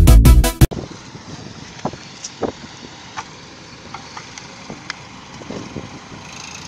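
Loud music that cuts off abruptly under a second in. It is followed by a faint background of heavy-machinery engine noise with a few scattered light clicks.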